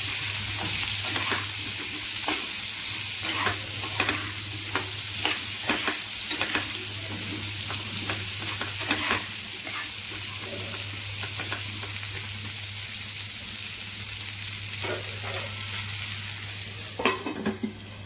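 Potato chunks frying in hot mustard oil in a frying pan: a steady sizzle, with a steel spatula scraping and knocking against the pan as they are stirred, most often in the first half and with a few louder knocks near the end.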